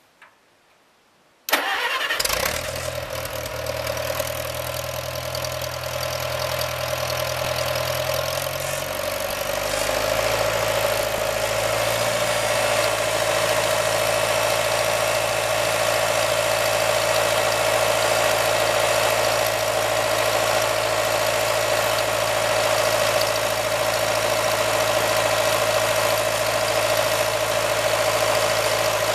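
International 340 Utility tractor engine starting about a second and a half in, catching at once and then running steadily at idle; its note shifts after about nine seconds. A steady high whine runs along with the engine.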